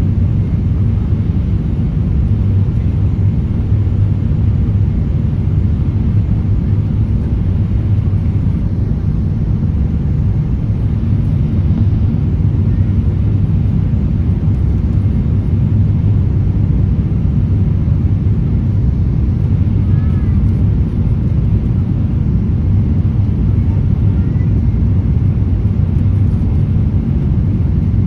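Steady low rumble of a jet airliner's engines and rushing air, heard inside the passenger cabin during the descent on final approach.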